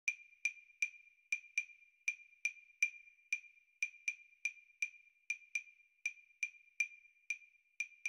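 Short, high plinks, all on one pitch, repeating about three times a second in an uneven, drip-like rhythm: the sparse percussive opening of a music track.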